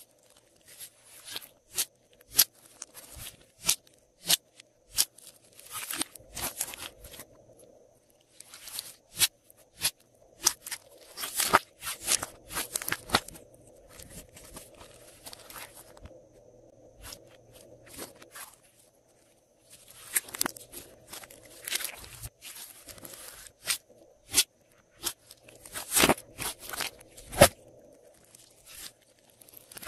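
Glossy slime being kneaded, folded and stretched by hand: irregular wet clicks, pops and squelches in clusters, with a couple of quieter pauses.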